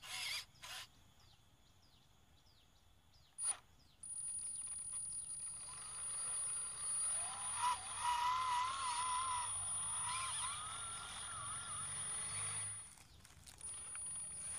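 Homemade RC 6x6 truck's drive motor and gearbox whining as it drives loaded with 6 kg of sandbags. The whine starts suddenly about four seconds in, as a steady very high whine over a lower one that rises and wavers with the load, and it drops away near the end. A sharp click comes just before it starts.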